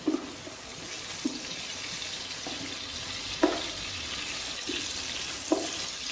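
Sliced onions and whole spices sizzling in hot oil as they are stir-fried, with a spatula knocking against the pot five or six times.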